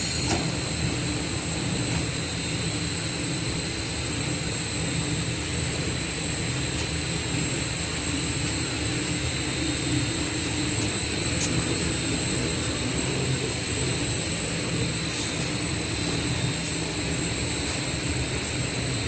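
A YICH Finishing wood-door and cabinet-door sanding machine running, its motors and cylindrical brush sanding rollers spinning. It makes a steady low rumble with a constant high whine over it.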